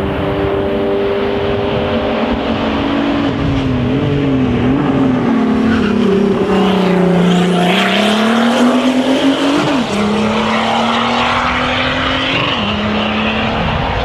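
Turbocharged 2.8-litre VR6 engine of a VW Golf IV hillclimb race car at full race effort: the revs fall to their lowest about halfway through as it takes a hairpin, then it accelerates hard away, the pitch climbing and dropping sharply at two upshifts.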